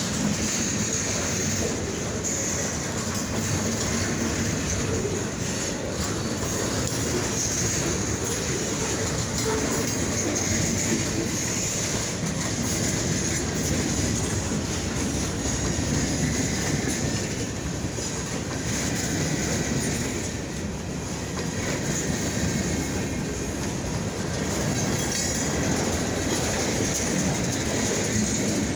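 Freight train rolling steadily past: a continuous rumble and clatter of steel wheels on the rails, with a steady high hiss above it.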